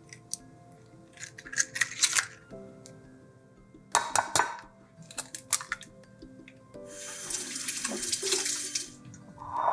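An egg cracked against a glass measuring cup and separated by hand: sharp clicks of shell on glass about a second in and again at about four seconds, then about two seconds of a steady rush like running water near the end. Soft background music throughout.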